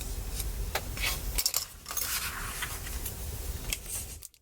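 Small clicks and scraping as a pry tool is worked under a glued MacBook Pro battery to lever it up out of the aluminium case, with a longer scrape about two seconds in.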